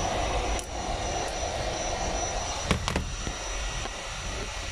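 Heat gun running, a steady rushing blow of hot air used to heat the tablet's parts; two sharp clicks come close together about three seconds in.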